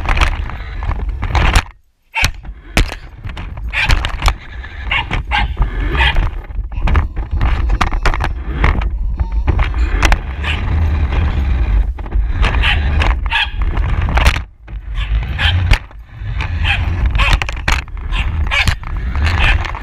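Dog barking and yipping at close range while it chases and bites a radio-controlled car, with many sharp knocks and clatters over a steady low rumble. The sound drops out briefly about two seconds in.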